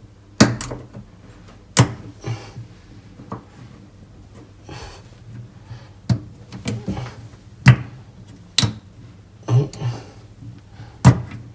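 Small flat-bladed screwdriver clicking and scraping against the inside of a metal tap body as it prises at the plastic insert seal. About a dozen sharp, irregular clicks, some of them loud.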